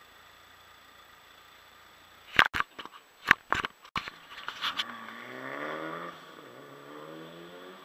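Rally car engine accelerating hard: its pitch rises, drops once at a gear change, then rises again. Before it come several loud, sharp cracks in quick succession.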